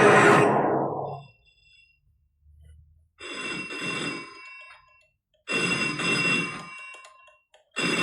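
Telephone bell ringing in repeated rings, each about a second and a half long. A loud noise fades out about a second in, before the first ring.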